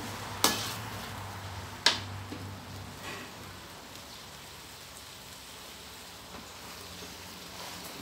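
A metal spatula strikes a stainless steel wok twice in the first two seconds of stirring glass noodles, then the noodles sizzle steadily in the pan.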